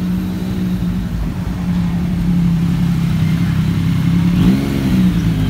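Road vehicle's engine running, heard from inside the vehicle: a steady low hum that grows louder, its pitch shifting briefly about four and a half seconds in.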